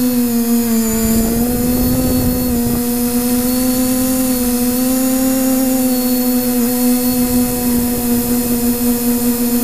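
Brushless motors and propellers of a multirotor drone, driven by ZTW Spider 40A ESCs flashed with SimonK firmware, whining steadily in flight as heard from the craft's own camera, the pitch drifting slightly with throttle. Wind rushes over the microphone about one to three seconds in.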